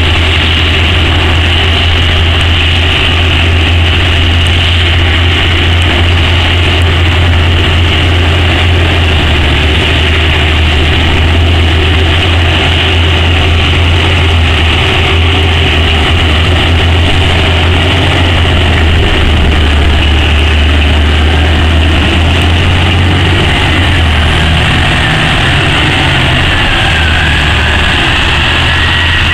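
Heavy diesel engines of an O&K RH120-C hydraulic face shovel and Caterpillar haul trucks running together: a loud, steady low drone with a steady high whine above it, and a wavering whine near the end.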